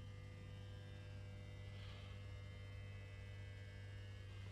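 A low steady hum, with a faint brief noise about two seconds in.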